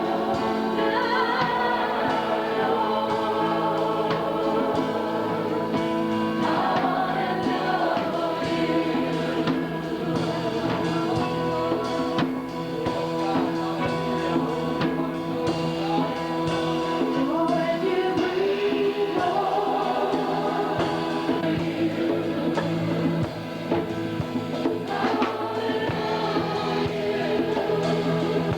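Gospel choir singing a worship song, with held notes of accompaniment underneath.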